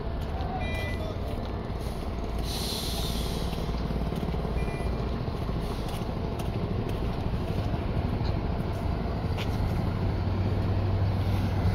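Heavy diesel vehicle engine running steadily with a low rumble, its hum growing stronger over the last few seconds. About two and a half seconds in comes a short hiss lasting about a second.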